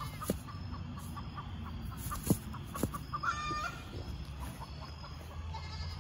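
Chickens clucking, with short repeated calls and one longer call about three seconds in, over a low steady hum. A few sharp clicks come about two seconds in.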